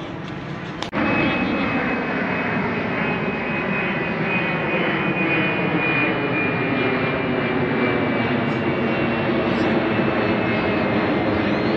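Jet airliner climbing out overhead after takeoff, its engines running at climb power. A high whine sits above the engine noise and slowly drops in pitch, and the sound jumps louder about a second in.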